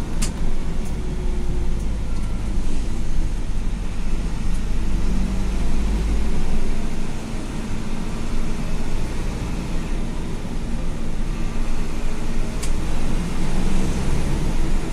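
Medium-size intercity bus on the move: a steady low engine drone with road noise. There is a sharp click just after the start and another near the end.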